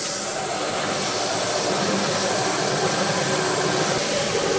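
Large belt sander (linisher) running steadily while the flange of a welded stainless steel turbo manifold is held flat against its abrasive belt, grinding the flange face true after welding.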